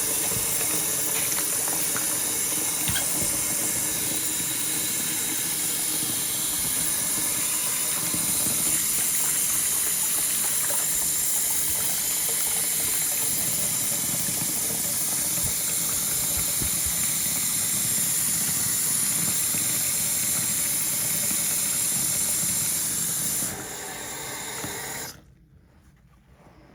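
Water running steadily from a tap as a steady hiss; it is turned down about 23 seconds in and shut off a couple of seconds later.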